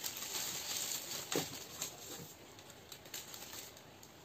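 Clear plastic bag around the ink bottles rustling and crinkling as the pack and its cardboard insert are handled, with a few light knocks.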